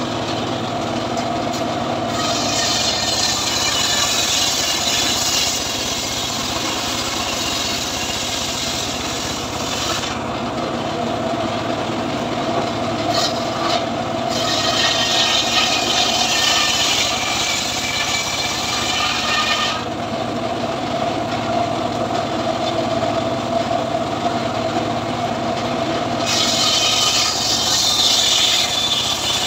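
Homemade circular saw bench ripping mahogany slabs: the blade runs with a steady hum, and three long cuts of several seconds each set off a loud, high-pitched rasping as it bites into the wood. The blade spins freely between the cuts.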